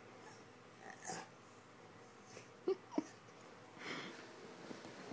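Six-month-old Saint Bermastiff puppy (Saint Bernard–mastiff cross) making small noises: faint breathing and sniffing, with two short squeaks in quick succession a little past the middle.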